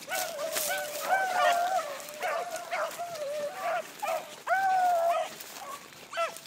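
A pack of hunting beagles baying, several hounds' voices overlapping, with long drawn-out bays about a second in and again about four and a half seconds in.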